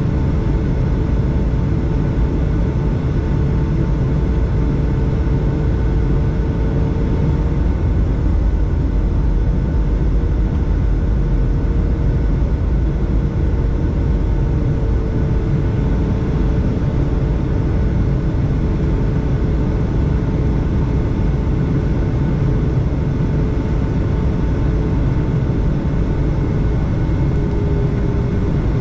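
Inside the cabin of a Boeing 757 on final approach: a steady low rumble of airflow and its Rolls-Royce RB211-535 turbofans, with a steady engine hum whose pitch drops slightly near the end.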